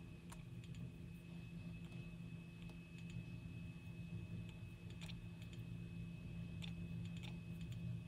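Light clicks of a stylus tapping a handheld scan tool's touchscreen, a few scattered taps, over a steady low hum and a faint steady high whine.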